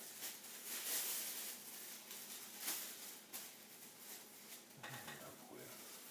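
Thin plastic shopping bag crinkling and rustling as a folded, cut sheet is opened out by hand, in several short bursts, loudest about a second in.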